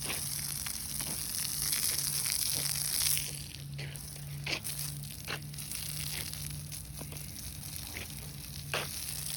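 Garden hose spraying water onto freshly poured concrete: a steady hiss that eases about three seconds in, with a few scattered clicks over a low steady hum. The watering keeps the concrete from drying too fast and cracking.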